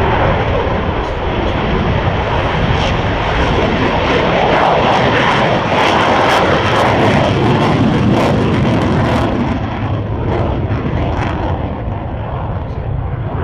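Military jet aircraft flying past with a loud roar that builds to a peak around the middle, crackling at its loudest, then fades off.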